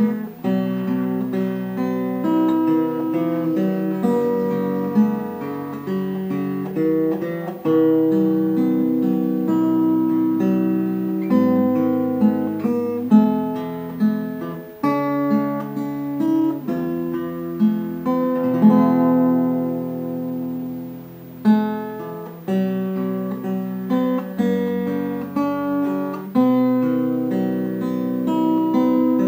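Background music: acoustic guitar playing plucked notes and chords at an even pace.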